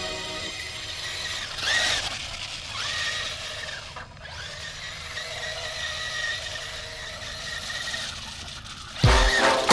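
Brushless motor of an Axial Yeti XL RC truck whining as it drives, the pitch rising and falling with the throttle, with a sudden loud burst near the end.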